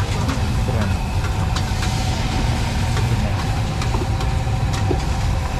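Steady low engine hum, like an idling motor, with a few faint steady tones above it and scattered light clicks and clatter.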